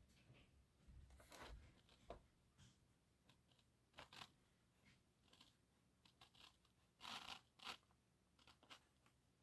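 Very faint scratching of a crayon colouring on paper, in a few short scattered strokes, the clearest about four and seven seconds in.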